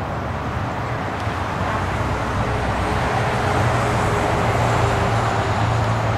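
Steady road traffic noise from motorway cars and trucks, a rush of tyres and engines with a low hum, growing slowly louder.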